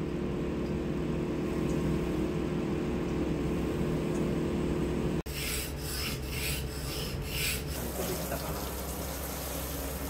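Drum-type washer-dryer running with a steady hum. At a cut about five seconds in, it gives way to a knife being stroked on a whetstone: about six quick rasping strokes, roughly three a second.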